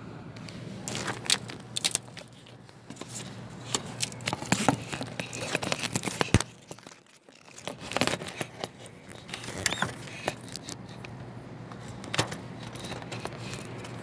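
Handling noise on a phone's microphone: irregular rustling and scraping with scattered sharp clicks, over a faint steady low hum.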